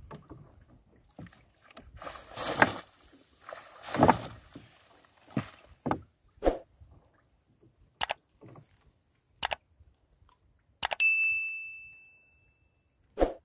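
Wet gill net hauled into a wooden outrigger boat: two loud splashy rushes of water, then scattered knocks. About two seconds before the end, clicks and a bell ding from a subscribe-button animation sound effect ring out and fade.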